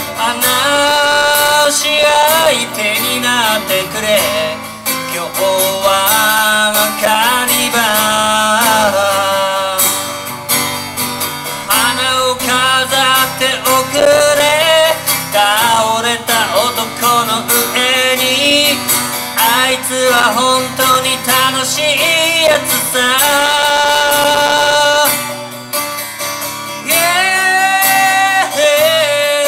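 A man singing over a strummed acoustic guitar, amplified through a PA.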